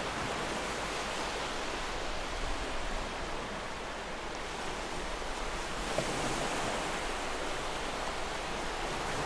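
Waterfall rushing steadily, a continuous, even hiss of falling water.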